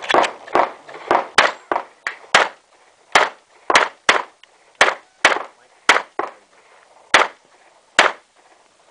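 Pistol fired in rapid succession during a practical-shooting course of fire: well over a dozen sharp shots, many in quick pairs and short runs with brief pauses between. The shots grow more spaced out toward the end, and the last two come about a second apart.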